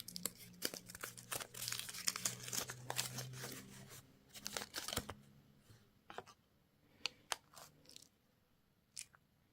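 A crinkly wrapper being torn open and crumpled for about four seconds, followed by a few separate clicks and light taps.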